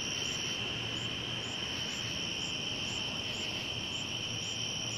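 Night insect chorus: crickets trilling steadily, with a higher-pitched chirp repeating at an even pace.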